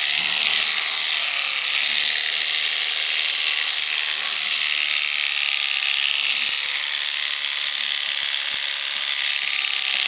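Electric shearing handpiece running with a steady, high buzz as its comb and cutter clip an alpaca's fleece around the head and neck.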